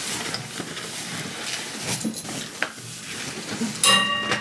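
Horse rug fabric rustling and flapping as it is pulled over a horse's back, with scattered light clicks. Near the end comes a short ringing tone, the loudest moment.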